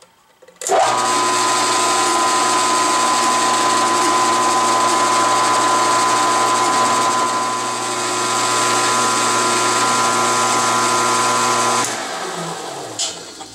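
Benchtop milling machine running: its spindle motor and gear drive give a loud, steady whine while a 3/8-inch end mill cuts a counterbore in a lathe saddle. The machine starts about a second in, is switched off near the end and winds down, falling in pitch, with a click.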